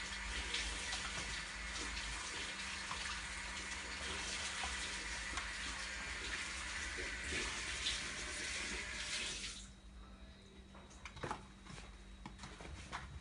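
A steady rushing noise that cuts off suddenly nearly ten seconds in. After it come a few light knocks as a cat paws at a spring toy on a small mat, the loudest a little past eleven seconds.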